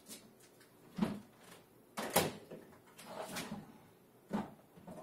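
Several separate knocks and clunks, roughly one a second, as a plastic ice chest and a power drill fitted with a hole saw are handled and set up.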